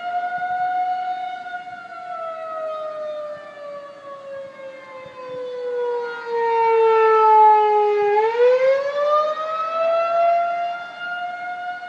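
Outdoor warning siren sounding a continuous wailing tone. Its pitch sinks slowly for several seconds, then climbs quickly back about two-thirds of the way through, and it grows louder around the low point.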